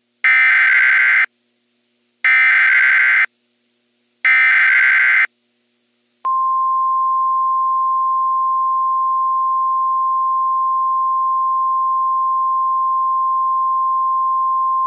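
Emergency Alert System SAME header: three bursts of warbling digital data tones, each about a second long and a second apart, then the NOAA Weather Radio 1050 Hz warning alarm, one steady tone starting about six seconds in. It signals that a Severe Thunderstorm Watch is about to be broadcast.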